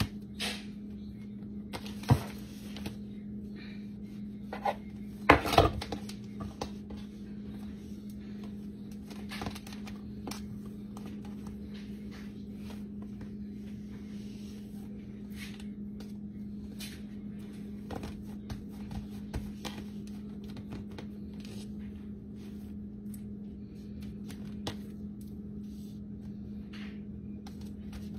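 A knife tapping and scraping on a metal pizza pan as pizza dough is cut, then soft rubbing and handling as the dough is pulled and pressed onto the pan. A few sharp knocks come about two and five seconds in, over a steady low hum.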